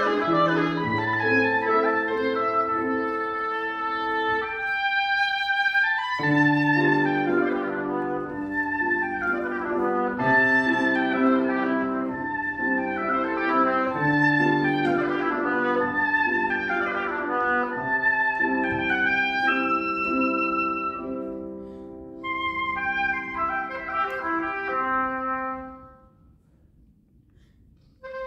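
Oboe and grand piano playing classical music, the oboe carrying the melody over piano chords. Both stop for a pause of about two seconds near the end.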